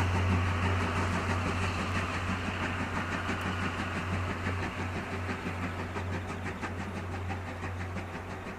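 Tobu SL Taiju train hauled by steam locomotive C11-325 running away along the track: a steady low rumble with rhythmic wheel clatter over the rail joints, slowly fading.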